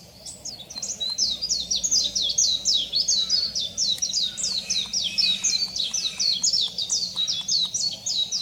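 Japanese white-eye singing: a long, fast, high twittering warble of rapid sliding notes that carries on without a break and stops abruptly near the end.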